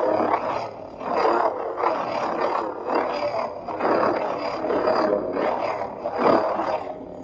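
Sound-font lightsaber humming with a swell of swing sound about once a second, from an 89sabers Fallen V1 on a Golden Harvest v3 board running a Survivor font through a 28mm speaker. It sounds somewhat muffled, because the speaker vents only through a narrow slit in the pommel.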